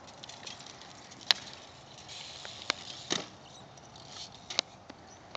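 BMX bike being ridden: a few sharp clacks and knocks, the loudest a little over a second in, over a faint rolling hiss.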